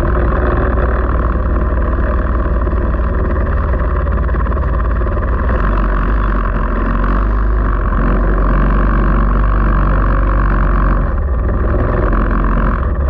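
Racing vehicle's engine running steadily at speed, loud, with a heavy low rumble.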